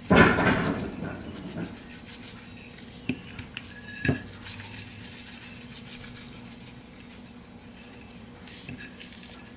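Seasoning shaken from a plastic shaker onto raw chicken on a glass plate, a loud rattle lasting about a second at the start, followed by two short knocks against the dish about three and four seconds in and quiet handling of the meat.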